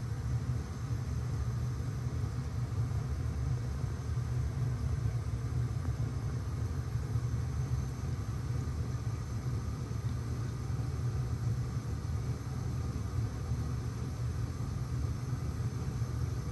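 Steady low hum and rumble of a reef aquarium's running equipment, its pumps and water circulation, unchanging throughout.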